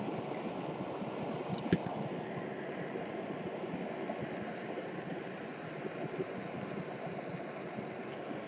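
Gas torch flame hissing steadily against the foil lid of a charring plastic yogurt cup, with one sharp pop a little under two seconds in.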